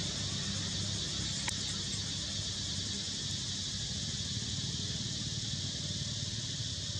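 Steady high-pitched drone of insects in the trees over a low, even hum, with a single faint click about a second and a half in.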